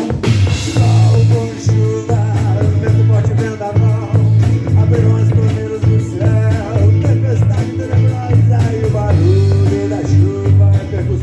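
Rock band playing live: drum kit with a cymbal crash at the start and a steady hi-hat beat, a steady bass line, and a voice singing over it.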